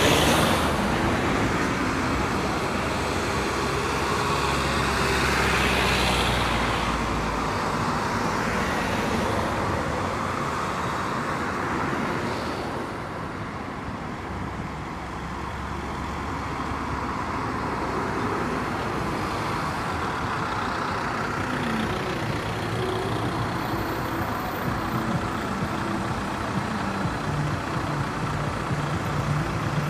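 Zillertal Railway narrow-gauge steam train working away, the locomotive's exhaust fading as it draws off, with road traffic passing close by.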